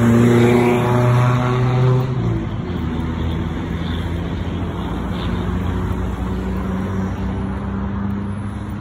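Road traffic: a car engine running loud and close for the first couple of seconds, then fading into a steady traffic hum.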